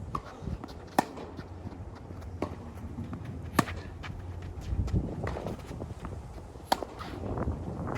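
Tennis rally: a ball struck by rackets every two to three seconds, with sharp pops about one, three and a half and nearly seven seconds in, and softer bounces between. Footsteps on the court and wind rumble on the microphone run underneath.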